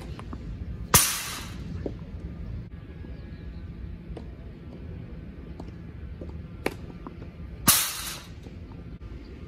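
Tennis practice: a distant racket hit on a tennis ball, then about a second later a much louder sharp crash with a short rough tail as the ball reaches the near end of the court. The same pair comes again near the end.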